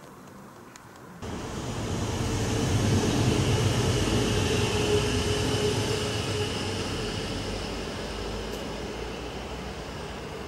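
Electric S-Bahn train passing close by: rumble and wheel noise on the rails with a steady whine over it, starting abruptly about a second in, loudest a few seconds later, then slowly fading as the train draws away.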